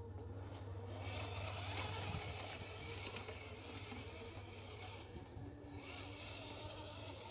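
Electric motor and gears of a radio-controlled rock crawler truck whining at low speed as it crawls over rocks, over a low steady rumble.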